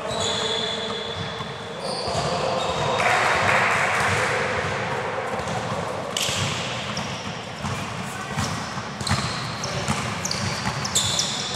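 Indoor futsal game in a large echoing gym: short high squeaks of sneakers on the court, the ball being kicked and bouncing, and a louder rush of noise about three seconds in.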